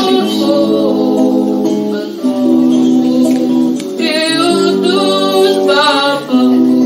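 A slow worship song: a voice sings a melody into a microphone over sustained accompanying chords that change every couple of seconds.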